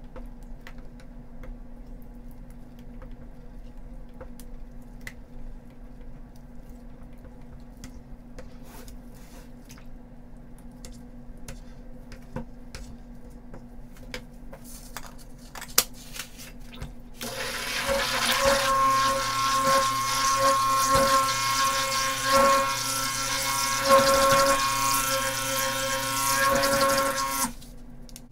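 Handheld stick blender starting about two-thirds of the way in and running steadily for about ten seconds with a held whine, mixing ultramarine blue colorant in a small cup, then cutting off suddenly. Before it, only faint clicks of cups and tools being handled.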